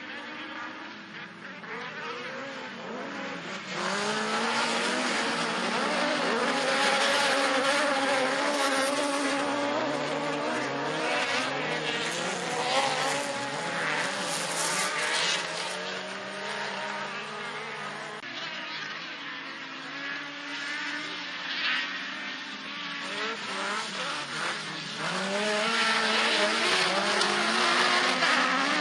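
Several autocross touring-class cars racing on a dirt track, their engines revving up and down through gear changes. The pack gets louder a few seconds in and again near the end.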